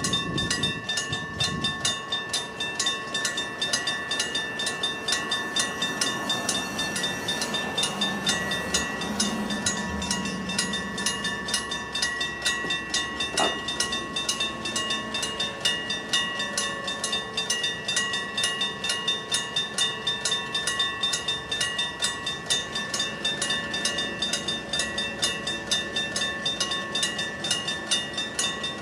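Level-crossing alarm ringing from electric bells, a fast, even stream of strikes. A KiHa 40 diesel railcar train passes, adding a low rumble that is loudest about a third of the way in.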